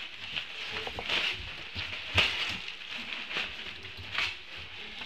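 Golden retriever puppies moving about in wood-shaving bedding: rustling and scratching, with scattered clicks and one sharp knock about two seconds in.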